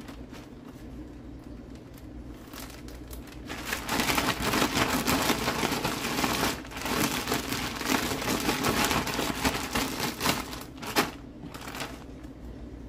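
Clear zip-top plastic bag of diced mixed vegetables crinkling and rustling as it is handled and shaken, starting about four seconds in with a brief pause midway, and a sharp click near the end.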